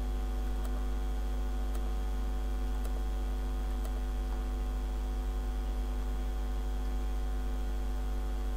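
Steady low electrical hum, mains hum picked up by the recording microphone, with a few faint clicks about a second apart in the first half.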